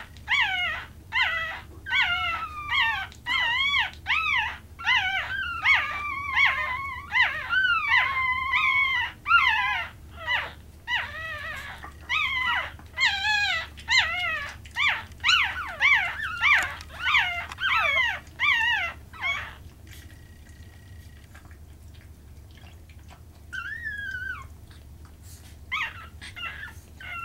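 Chihuahua puppies crying: rapid, high-pitched, sliding squeals, with more than one puppy calling at once. The crying stops about two-thirds of the way through, leaving only a few calls near the end.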